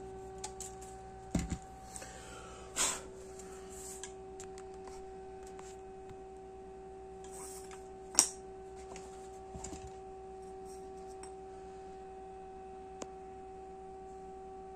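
Handling noises of a Lubitel twin-lens reflex camera on a cloth-covered table: a few soft knocks and rustles in the first three seconds, then one sharp click about eight seconds in as the lens cap is put down, and a small click near the end. A steady humming tone sits underneath.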